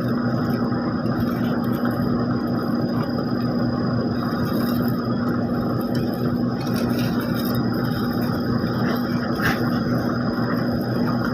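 Heavy paving equipment's engine running steadily at constant speed: an even, unchanging low hum.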